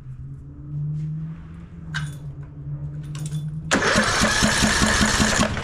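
Briggs & Stratton 17.5 Intek single-cylinder engine turned over by its electric starter, starting about two-thirds of the way in and running at an even pulsing rhythm, without firing. It cranks but gets no spark: the ignition coil has failed.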